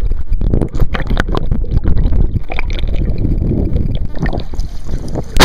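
Running river water and wind buffeting the microphone, with scattered knocks from the camera being handled right at the water's surface.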